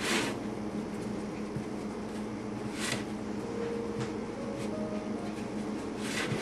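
Steady low hum with a few soft, brief rustling sounds as hands press and crimp the edge of whole wheat pizza dough on a pizza pan.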